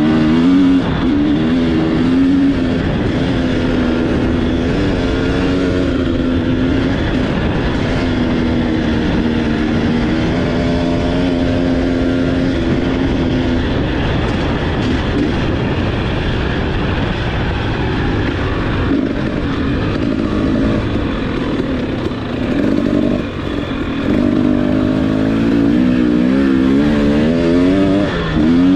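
KTM 300 two-stroke dirt bike engine running on a trail ride, its revs rising and falling with the throttle, heard close up from the bike.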